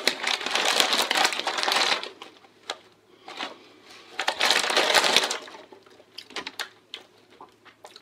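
A foil crisp bag crinkling loudly while it is handled, in two bursts of about two seconds and a second and a half, with scattered small crackles between and after.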